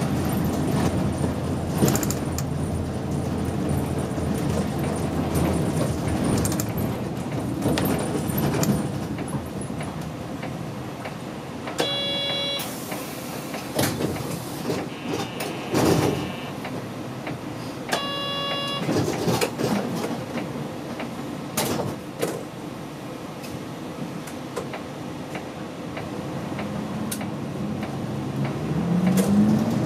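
City route bus coming to a halt at a stop, with engine and road noise. About 12 s in a short chime sounds, followed by a hiss of air, and a second chime comes about six seconds later: the bus's doors opening and closing at the stop. The engine then idles.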